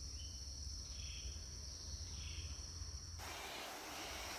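Rainforest ambience: a steady high insect drone with a few short, faint bird calls. About three seconds in, an even hiss abruptly takes over the background.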